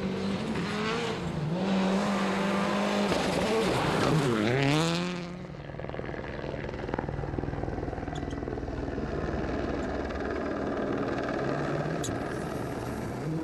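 Rally car's turbocharged four-cylinder engine heard from on board at speed, its revs held high, then dropping sharply and climbing back about four seconds in. After that it runs lower, quieter and steadier.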